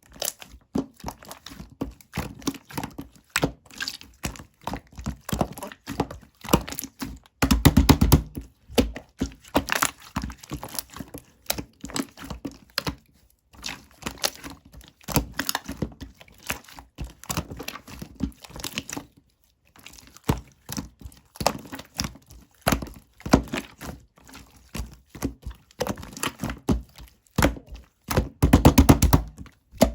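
Slime being squeezed, poked and folded by hand, making a dense run of small pops, clicks and crackles, with two louder stretches about 8 seconds in and near the end and a couple of brief pauses.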